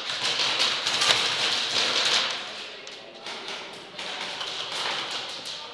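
A dense, rapid patter of sharp clicks and taps from airsoft fire: guns shooting and BBs striking walls and surfaces. It thins out about halfway through.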